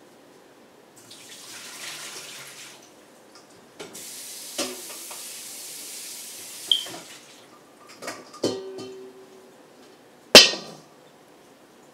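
Water splashing into a sink as a stainless-steel bowl is emptied of dirty water and rinsed under a running tap. The metal bowl clanks several times, ringing briefly, and one sharp knock about ten seconds in is the loudest sound.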